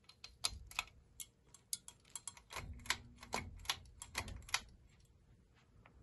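Pull-chain switches and metal bead chains on a Quorum Pinwheel ceiling fan, clicking and rattling in a quick, uneven run as the chains are pulled; the light kit is switched off. The clicking stops a little before five seconds in.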